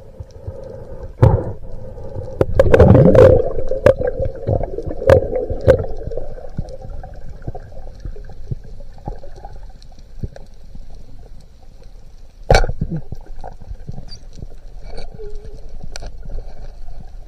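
Underwater sound picked up through a camera's waterproof housing: a steady low rush of water with a faint hum, broken by sharp clicks and knocks. The loudest come in a cluster about three seconds in, with single strong knocks about a second in and near twelve and a half seconds.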